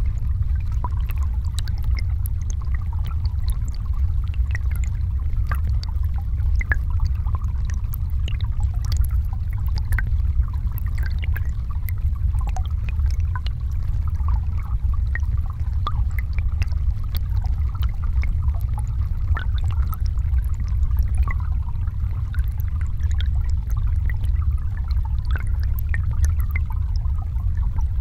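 Shallow river current flowing over rocks, heard underwater: a steady low rumble with a fainter wash above it and faint, scattered ticks.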